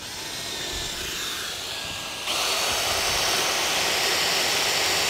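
Cordless drill running in rotary-only mode, boring a long 6.5 mm masonry bit through the mortar bedding under a tile ridge cap. It runs steadily and gets louder about two seconds in.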